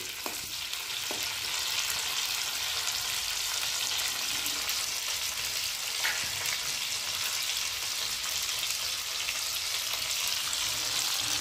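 Dried prawns sizzling steadily as they fry in hot oil in a kadai, the stage where they are browned before the garlic goes in.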